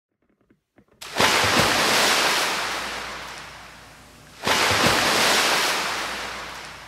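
Two ocean waves breaking and washing out: a sudden surge about a second in that fades slowly, then a second surge about three and a half seconds later that fades the same way.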